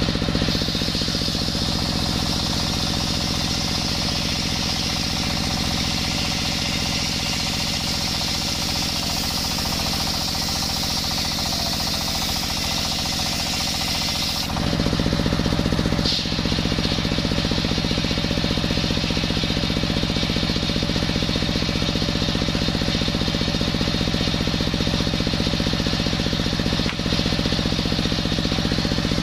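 Engine-driven table circular saw ripping a coconut-wood beam, the blade screaming under load for about the first half. About halfway through the cut ends and the high scream stops, leaving the stationary diesel engine and free-spinning blade running steadily.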